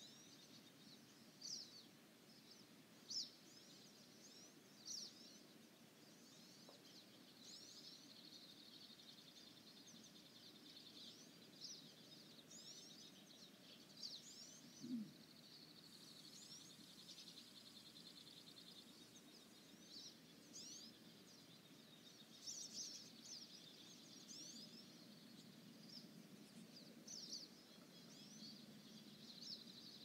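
Faint spring birdsong in a conifer forest: several songbirds give short, high chirps and slurred notes every second or two over a soft, even background of more distant song.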